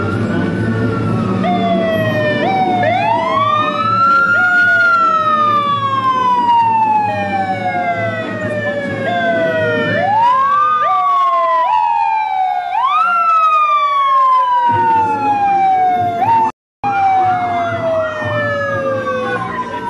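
Sirens of several police cars passing in a parade, overlapping: each winds up quickly and then slides slowly down in pitch, again and again, over a low vehicle rumble. The sound cuts out completely for a moment near the end.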